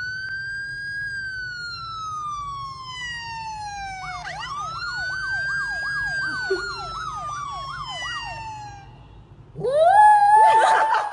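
A siren sound played from a phone: a long wail that rises and slowly falls, then a wail with a fast yelping warble. About a second from the end a small white dog howls along, loudest of all.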